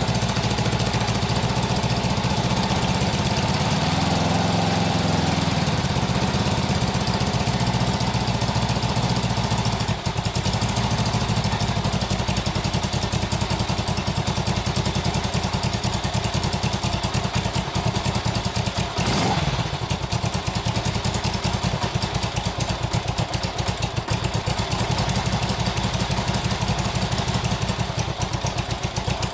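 Honda CB77 Super Hawk's 305 cc parallel-twin engine running after its first start following restoration. It revs up and back down once about four seconds in and blips briefly near the twenty-second mark, with wind on the microphone. The owner finds it running very rich.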